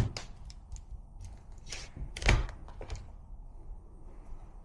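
Knocks and clicks of the center console parts being handled and tested: a sharp knock right at the start, a few light clicks, and a duller thud about two seconds in.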